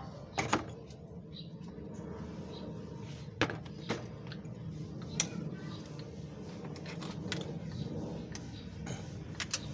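A handful of short, sharp clicks and knocks from hands and tools working on the engine around the intake manifold, spread unevenly over a steady low background hum.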